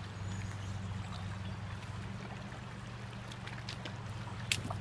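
Fast-flowing river water rushing steadily, over a low steady hum, with one sharp click near the end.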